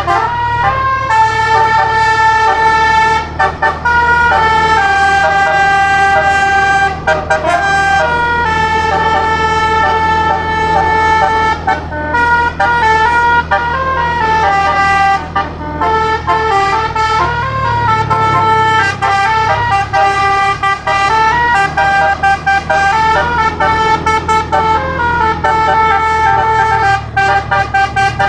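Basuri telolet horn, a set of 12 tuned air-horn trumpets driven by a MIDI module, playing a melody in stepped, held notes, often several at once, over a steady low hum.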